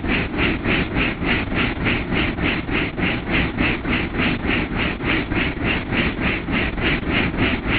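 Helicopter in flight heard from inside the cabin: steady engine and rotor noise with an even beat of about four to five pulses a second.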